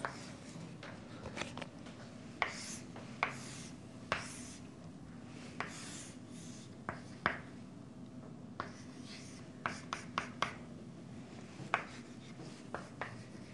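Chalk on a chalkboard: irregular short scraping strokes and taps as lines of a triangle are drawn, over a faint steady hum.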